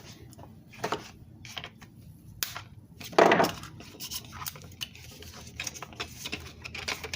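Retail packaging being cut and pulled open by hand: a scatter of light clicks and knocks, with one louder noise lasting under half a second about three seconds in.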